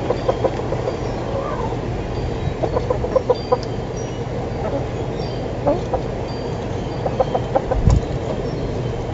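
Chickens clucking in several quick runs of short notes over a steady background noise, with a low thump near the end.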